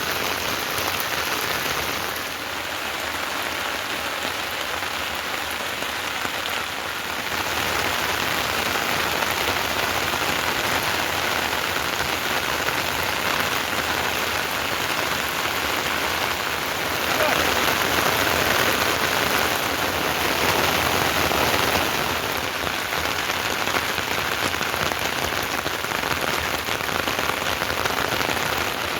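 Heavy rain falling steadily, a little louder for several seconds past the middle.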